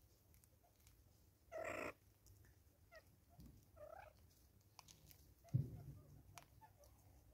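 Vervet monkey foraging birdseed from a seed cake at close range: faint clicks of seeds being picked up, a short animal call about a second and a half in, and a low thump against the stump a little past five seconds, the loudest sound.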